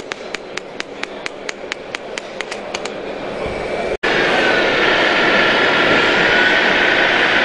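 Breaker hammer on a model excavator chattering against concrete, a rapid run of sharp strikes about five or six a second that fades away after about three seconds. About four seconds in a louder, steady mechanical running sound with a faint whine takes over.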